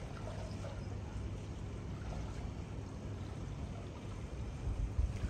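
Pool water gently lapping and trickling, with a low rumble beneath it that grows a little bumpier near the end.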